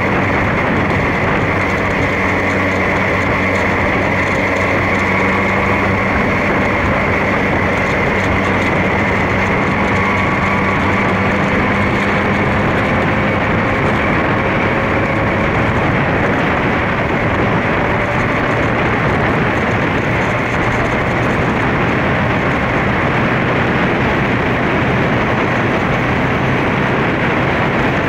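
Honda CBR600F2's inline-four engine running as the motorcycle rides along, under a steady rush of wind and road noise over the onboard microphone.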